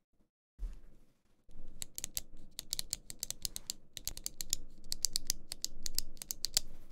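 GMMK Pro mechanical keyboard with lubed Healios linear switches and PBT keycaps being typed on: a fast, steady run of keystrokes starting about a second and a half in. A single low thump comes just before it.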